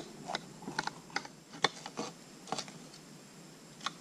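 A knife cutting red bell pepper into strips on a cutting board: irregular short, sharp clicks as the blade goes through the pepper and taps the board, about two a second.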